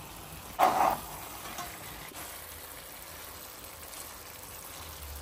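Quail roast with boiled quail eggs sizzling gently in a nonstick frying pan as a spatula stirs it, with one short louder scrape about half a second in.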